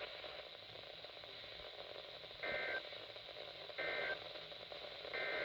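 Three short bursts of EAS digital data tones, each about a third of a second long and about a second apart, over a faint hiss. They are the three repeats of the end-of-message code that closes an Emergency Alert System message.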